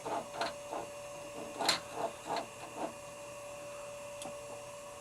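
Macintosh Portable running, with a steady hum throughout and a quick run of about eight short clicks and clacks in the first three seconds, then only the hum.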